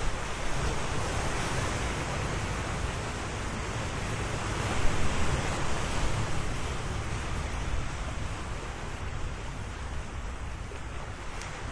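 Ocean waves breaking: a steady rush of surf that swells to its loudest about five seconds in and then slowly eases.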